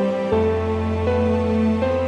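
Soft background music of sustained chords over a steady low bass note, the chord changing about every half second to a second.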